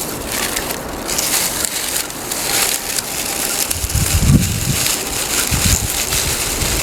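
Wood campfire crackling and hissing under wind that buffets the microphone in gusts, strongest about four seconds in.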